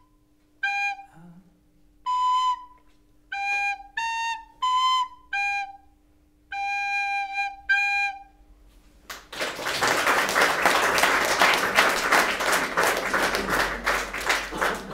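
A child plays a recorder: clear separate notes with short gaps, the last phrase held a little longer and ending about eight and a half seconds in. Then the audience applauds to the end.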